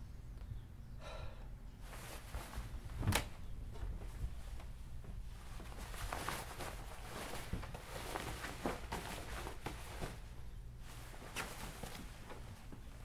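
Quiet rustling and small knocks of clothes being handled, with one sharp click about three seconds in.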